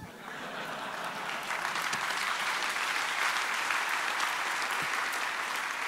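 Large audience applauding, a dense patter of many hands clapping that swells over the first couple of seconds and then holds steady.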